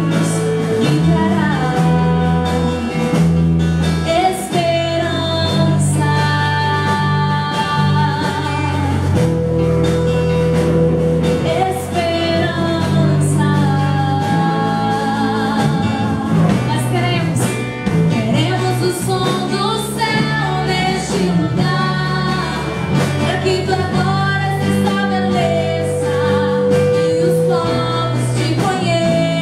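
Christian worship song playing: sung vocals holding long notes with vibrato over a band with a steady bass line.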